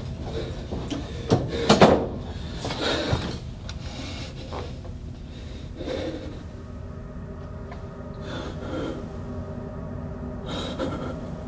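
A young man's stifled sobbing and gasping breaths, in short irregular catches, over a steady low drone. A few sharp knocks sound between one and two seconds in.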